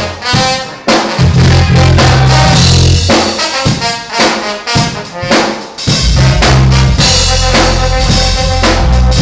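Live band music, loud: a drum kit beating out a groove with bass drum and snare, over a stepping bass line and some held pitched notes.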